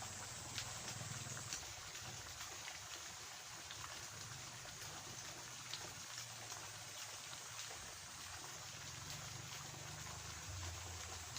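Faint, steady trickle of flowing water in a small ditch, with scattered small ticks and a low hum underneath.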